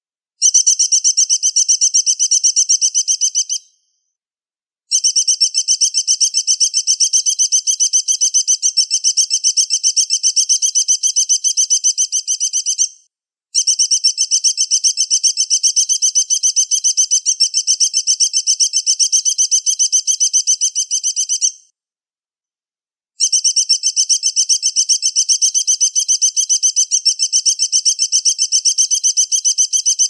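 Eagle calls played as a masteran recording: long runs of rapid, high-pitched chittering notes, several seconds each, broken by short silent gaps near 4, 13 and 22 seconds in.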